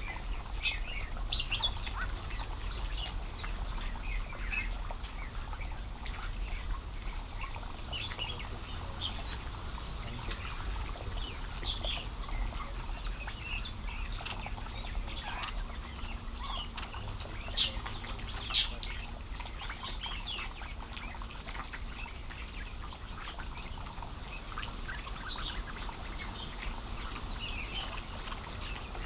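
Small songbirds chirping: many short, high calls scattered throughout, with a few sharper, louder notes a little past the middle.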